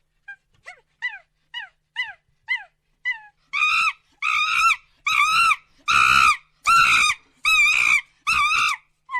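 Monkey calling: a quick series of short chirps that fall in pitch, then about seven loud, harsh calls in a steady rhythm, roughly one every 0.7 s.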